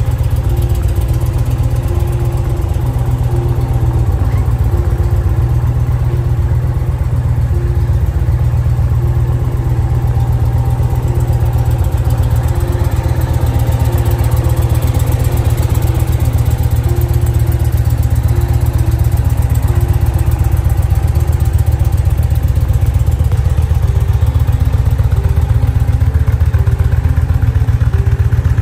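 Indian Challenger's V-twin engine idling steadily, with a deep, even pulse.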